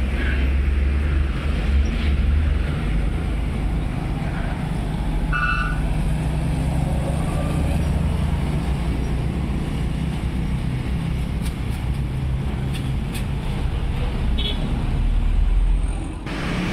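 Road traffic: motor vehicle engines running steadily, with a brief horn toot about five seconds in.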